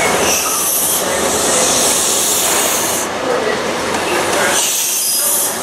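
LNER Azuma train moving along a station platform: a steady rumble with a high hiss that comes and goes as the carriages pass.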